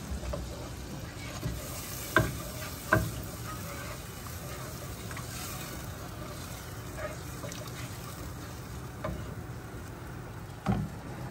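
Wooden spoon stirring thin khatti dal in a nonstick saucepan, with a steady low sizzle from the hot pot underneath. A few sharp knocks of the spoon against the pan: two about two and three seconds in, and one near the end.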